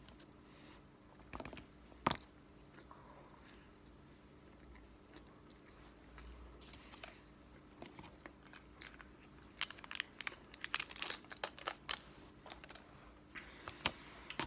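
Chewing a bite of McDonald's Filet-O-Fish close to the microphone, with scattered sharp clicks at first and a quick run of them in the second half.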